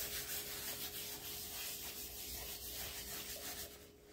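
A lint-free cloth rubbing wax into the surface of a wooden cutting board in repeated back-and-forth strokes, a soft scrubbing that dies away just before the end.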